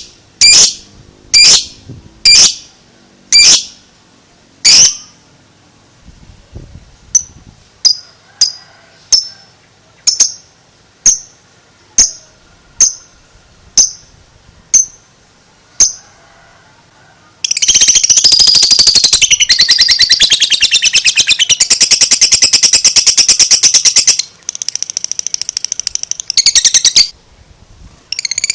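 Lovebird calling: sharp, high single chirps about once a second, then softer chirps, then, a little past halfway, the long rapid chattering trill called ngekek, running for about six seconds, followed by shorter bursts of the same chatter.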